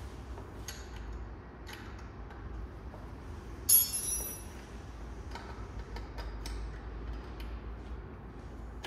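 Small metal hand tools being handled: scattered light clicks and ticks, with one sharp, ringing metallic clink about four seconds in.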